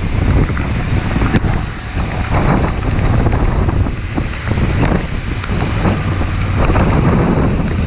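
Heavy wind buffeting the microphone of a moving motorcycle, a continuous low rumble with the vehicle's running noise underneath and a few sharp ticks.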